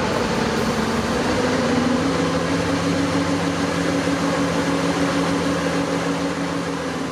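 Heavy machinery running steadily: a low engine-like hum over a constant noisy rush.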